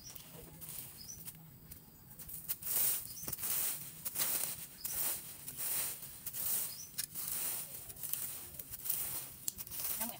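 Long-handled garden hoe scraping and chopping through dry grass, weeds and soil in repeated strokes, roughly one a second, with the dry rustle of uprooted grass and leaves.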